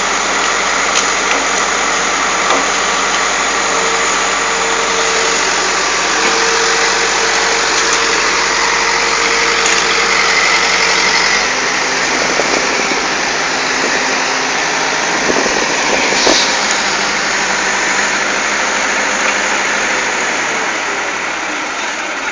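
Excavator engine running steadily, with a few short knocks about two-thirds of the way through.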